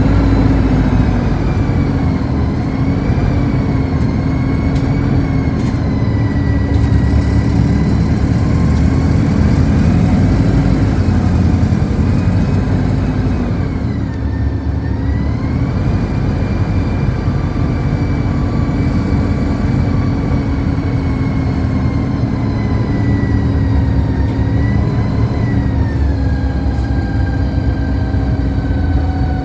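City bus heard from inside the cabin while driving: a steady low rumble with drivetrain whine whose pitch rises and falls with speed, dipping briefly about halfway and falling steadily near the end as the bus slows.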